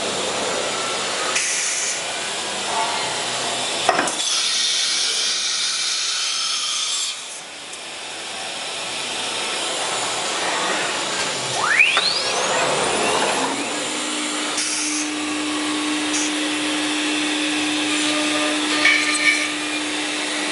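LH-5101-S CNC wood router working through an automatic tool change. About four seconds in there is a sharp click and a few seconds of loud hiss, then the sound drops away. About halfway through, the spindle spins back up with a clear rising whine and settles into a steady hum as cutting resumes.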